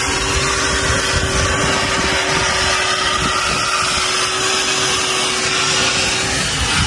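A machine or motor running steadily nearby: an unbroken rushing noise with a constant mid-pitched hum through it, unchanging throughout.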